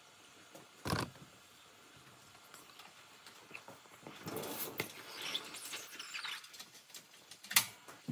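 Oxy-acetylene torch hissing faintly as it heats steel, with a dull knock about a second in, high squeaky noises in the middle, and a sharp clack near the end.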